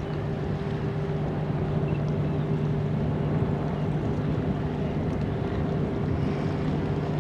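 Steady low drone of ships' diesel engines across the water, with a constant hum held at two steady pitches.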